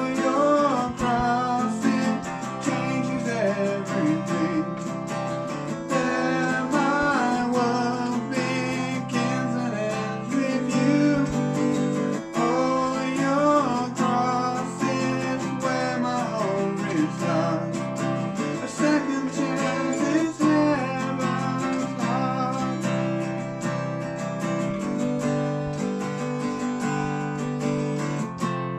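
Worship song played on a strummed acoustic guitar, with a voice singing the melody over it.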